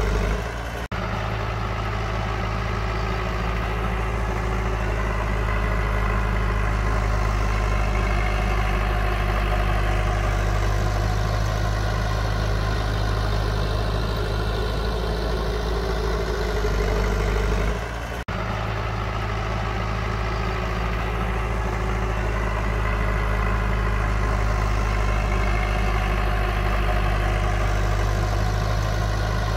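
Heavy diesel engine of earthmoving machinery running steadily with a low drone. The sound dips briefly and breaks off abruptly about a second in and again about eighteen seconds in.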